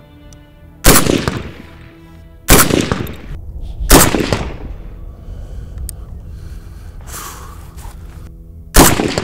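Four single shots from a suppressed RM277 bullpup rifle firing 6.8×51mm polymer-cased ammunition: one about a second in, two more about a second and a half apart, and the last near the end. Each shot is loud and sharp, with a short ringing tail. Background music plays underneath.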